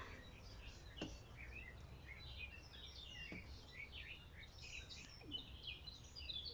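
Faint chirping and twittering of small songbirds, many short calls overlapping, with a few soft clicks.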